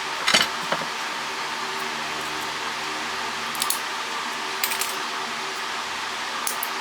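A few light clicks and clinks of small metal parts from dismantled cordless phones being handled and dropped while sorting them, over a steady hum.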